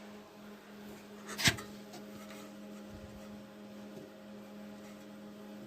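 Steady electrical hum in a quiet room, with a single short sharp click about a second and a half in.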